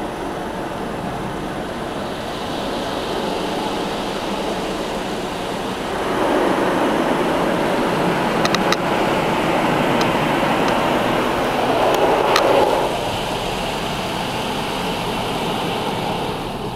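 Belanger Freestyler soft-cloth brushes and water spray working over a car's body, heard from inside the car: a steady rushing and slapping that grows louder about six seconds in as the side brushes pass the windows, with a few sharp ticks, and eases off just after the middle.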